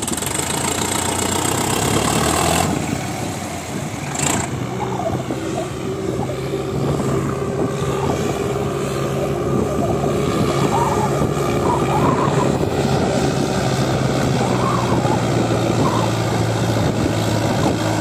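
Diesel engine of a Preet 6049 60 HP tractor running steadily, with a JCB backhoe loader's engine running alongside. A short click about four seconds in.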